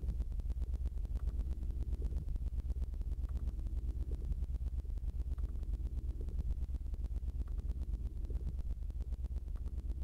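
A low hum, pulsing rapidly and evenly, with faint soft blips about once a second.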